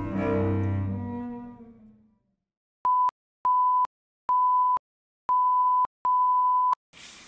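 Music with low strings fades out over the first two seconds. After a short silence, an electronic test tone beeps five times at one steady pitch, each beep a little longer than the last.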